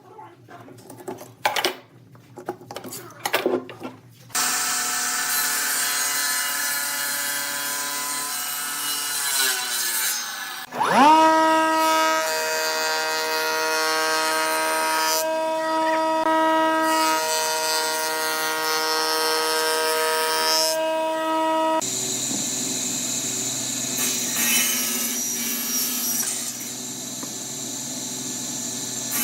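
Wood lathe running with a steady whine while a turning tool scrapes the spinning wood. About ten seconds in, the motor winds down and then quickly spins back up. It is preceded by a few seconds of scattered knocks.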